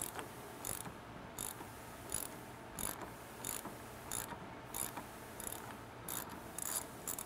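Hand ratchet wrench clicking in short bursts, about ten strokes at roughly one and a half a second, as it is swung back and forth loosening the locking nut on top of the strut.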